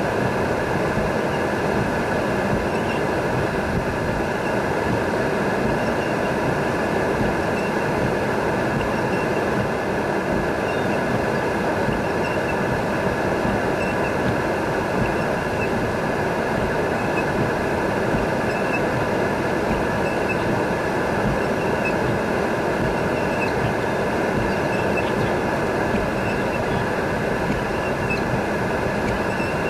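Steady rushing noise from inside a vehicle in a thunderstorm: rain on the windshield and body mixed with wind and road rumble, the windshield wipers running.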